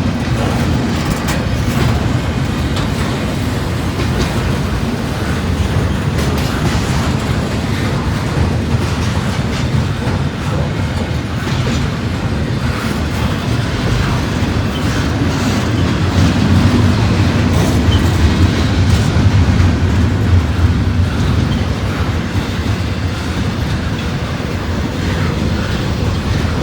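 CSX intermodal freight train's cars rolling past: a steady loud rumble with wheels clicking over the rail joints, swelling a little past the middle.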